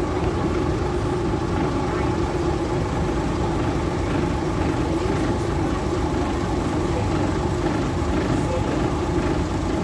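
Diesel train engine idling steadily while the train stands at the platform, a constant low rumble with a steady hum.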